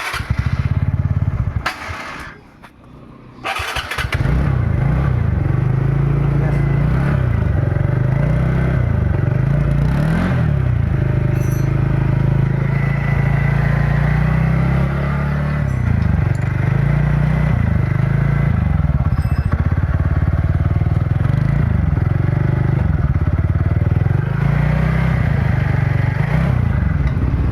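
TVS NTorq scooter's single-cylinder engine running, with a drop in level about two seconds in, then running steadily again from about four seconds with a few small changes in speed. Just after a repair meant to cure a loud abnormal engine noise, which is said to be fixed.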